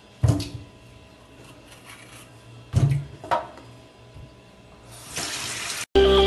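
Plantains and hands knocking against a stainless steel sink: one sharp clunk about a third of a second in and two more around three seconds in. Near the end comes a second-long hiss of tap water, then electronic music starts abruptly.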